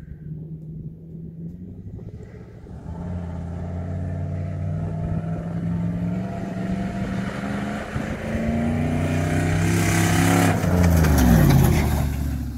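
Toyota 1UZ-FE VVTi 4.0-litre V8 in a Mitsubishi Delica van, running with no exhaust fitted, accelerating hard toward and past, its pitch climbing with a brief dip about eight seconds in. It is loudest as it goes by near the end, the pitch dropping sharply, with tyres flinging gravel.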